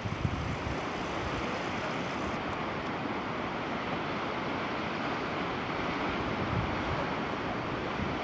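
Wind blowing over the microphone, with a steady wash of sea surf underneath. Low gusts buffet the microphone a couple of times.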